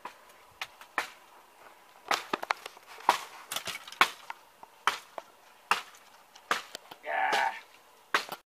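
Dry sticks and brushwood cracking and snapping: about a dozen sharp, irregular cracks, with a short crunching burst near the end.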